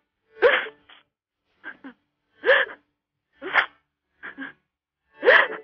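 A woman crying: about five short sobs with gasping breaths, roughly one a second, each sob rising and falling in pitch.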